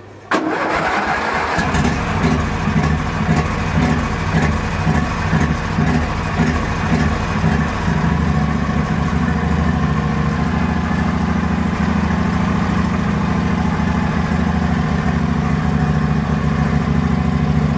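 Ride-on lawn mower's petrol engine catching on choke about a third of a second in, on a cold start after standing unused, and then running. The beat is a little uneven for the first several seconds, then it runs steadily.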